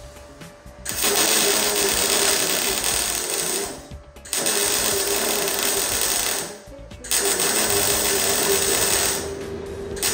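MIG welder arc crackling in three runs of two to three seconds each with short pauses between, as beads are laid on the steel rear torsion tube mount of a 1979 Porsche 911.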